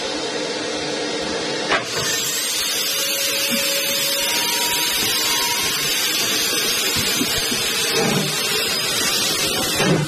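Steady hiss of steam from a steam locomotive standing at a station platform.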